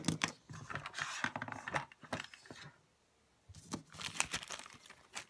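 Clear plastic bags and packaging crinkling and rustling as they are handled, in two bouts with a short pause about three seconds in.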